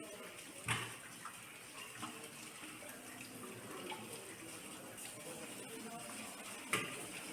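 Water running from a tap into a sink, with two sharp knocks, one about a second in and one near the end, and a few lighter ticks.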